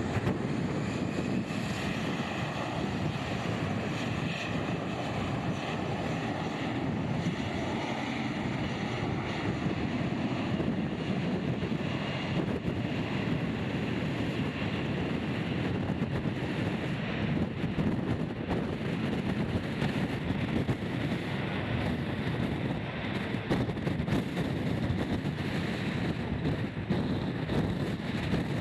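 Strong typhoon wind gusting on the microphone, a steady heavy rushing. The engine noise of a departing jet airliner fades away under it over the first several seconds.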